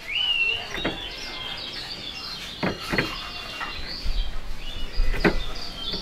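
Caged white-eyes (kecial) singing: a fast, high twittering song that runs on without break, opening with a clear upslurred whistle. A few short sharp taps cut through it, the loudest about a second and five seconds in.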